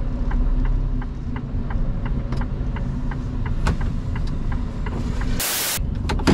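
Truck cab hazard warning lights ticking steadily, about three clicks a second, over the low idle of the truck's diesel engine. Near the end, a short loud hiss.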